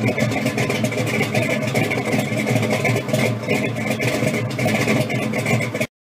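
An engine running steadily at a moderate level, cutting off abruptly near the end.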